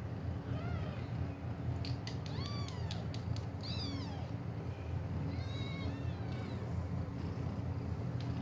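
Newborn kitten mewing: about five short, high calls that rise and fall in pitch, with a few faint clicks in the middle, over a steady low hum.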